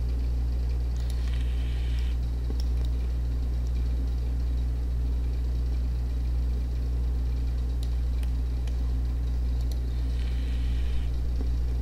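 Steady low electrical hum, with a few faint clicks.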